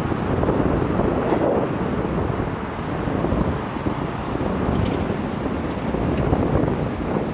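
Wind rushing over the microphone of a bicycle-mounted camera while riding at speed: a steady, rough noise with no breaks.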